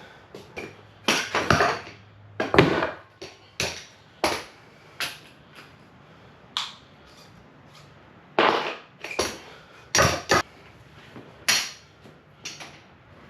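A series of irregular sharp metal clanks and knocks as dumbbells are set down and handled between sets, with a few longer breathy bursts of heavy breathing in between.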